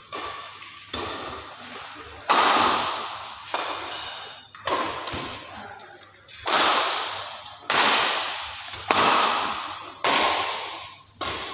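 Badminton rackets striking a shuttlecock back and forth in a rally, about ten sharp hits roughly a second apart. Each hit rings out and fades in the hall.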